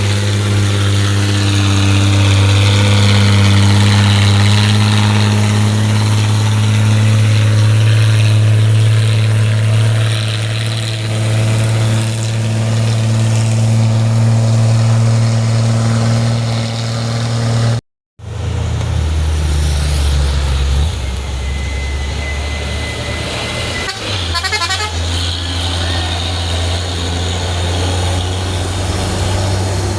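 Heavy diesel engine of a truck or bus pulling up a steep climb, a steady low drone. After a brief cut, another heavy vehicle's engine runs lower and a horn sounds in the second half.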